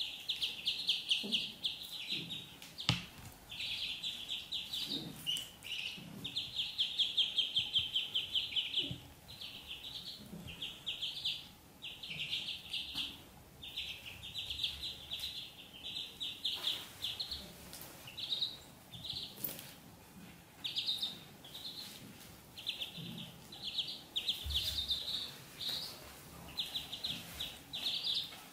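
Ducklings peeping: many rapid high peeps in quick runs, nearly unbroken in the first half and coming in shorter, separate clumps in the second half.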